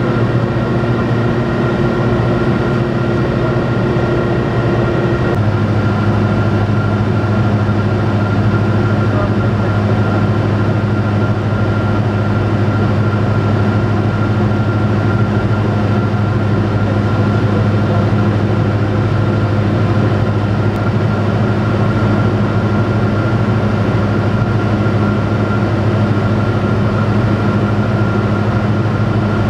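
Robin DR400 light aircraft's piston engine and propeller droning steadily in cruise, heard inside the cockpit. The tone shifts slightly about five seconds in.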